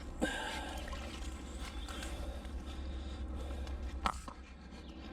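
Handling noise from pulling scrap off a fishing magnet, with two sharp clicks, one just after the start and one about four seconds in, over a steady low rumble.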